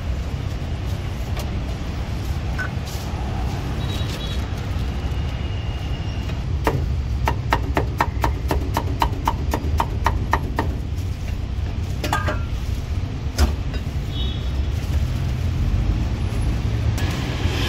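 Cleaver chopping cucumber on a thick wooden chopping block: a quick, even run of knocks at about four a second, with a few single chops before and after. A steady low rumble of street traffic runs underneath.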